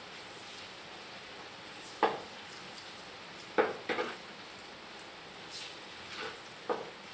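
A spatula stirring in a wok on a gas stove: four sharp knocks of the spatula against the pan, a few softer scrapes, and a light sizzle of frying underneath.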